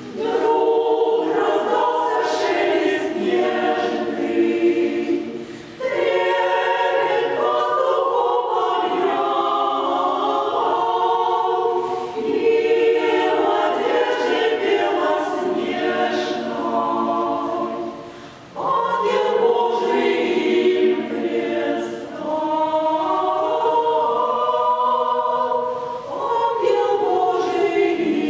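Women's choir singing Orthodox sacred music a cappella in several parts. It goes in long phrases, with brief breaths about six seconds in and again about eighteen seconds in.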